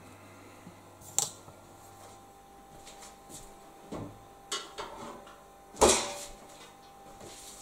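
Knocks and clatters of a washing machine's front panel being handled and fitted against the cabinet: a sharp knock about a second in, a few lighter knocks a little past the middle, and the loudest clatter near the end.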